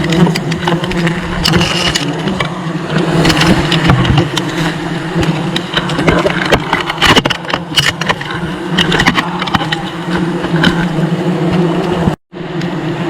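Dense buzzing of a mass of honeybees at their nest: a loud, steady drone with scattered clicks, cutting out for a moment near the end.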